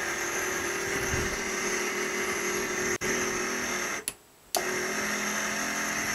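Mecpow X3 Pro laser engraver's air assist pump running with a steady motor hum, stopping for about half a second about four seconds in and then running again.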